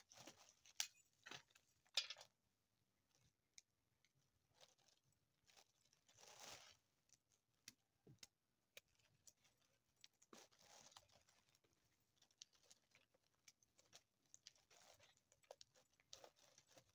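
Faint, scattered clicks and scratchy rasps of dried popcorn kernels being rubbed off the cob by hand and dropping onto a tray. A few louder clicks come in the first two seconds.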